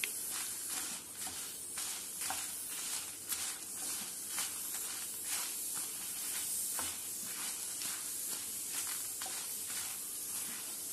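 Dried red chillies and curry leaves dry-roasting in a pan without oil, sizzling as a wooden spatula stirs them. The stirring brings a steady run of short, irregular scrapes and crackles.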